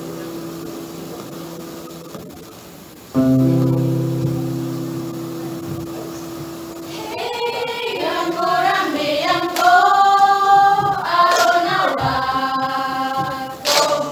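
Small mixed choir singing in harmony. A held chord fades, a new sustained chord enters loudly about three seconds in, and from about seven seconds the voices move into a louder melodic passage.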